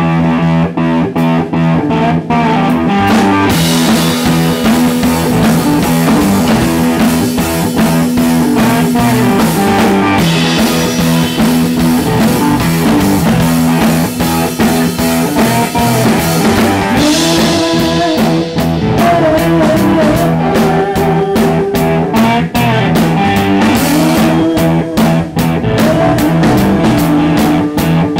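A rock band playing live: electric guitars over a drum kit, with the cymbals coming in a few seconds in.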